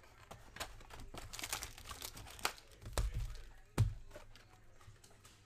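Plastic wrapping crinkling and tearing as a Panini Chronicles Football trading-card hobby box is unwrapped and opened. The cardboard box knocks dully twice, about three and four seconds in, and the second knock is the loudest sound.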